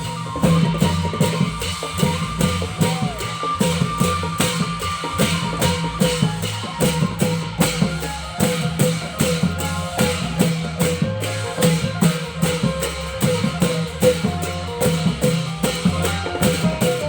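Thai klong yao long-drum ensemble playing a fast, steady, dense rhythm of drum strokes with other percussion.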